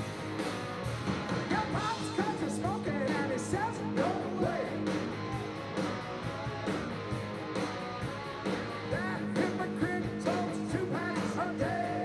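Live rock band playing: a woman singing lead over electric guitar and drums, the voice coming in and out in phrases.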